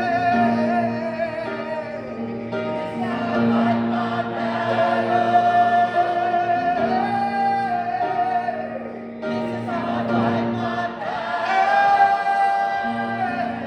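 Gospel-style worship song sung by a group with accompaniment, with long held notes over a sustained low note.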